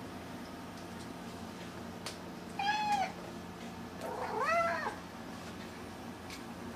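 House cat meowing twice: a short meow about two and a half seconds in, then a longer one about a second later that rises and falls in pitch.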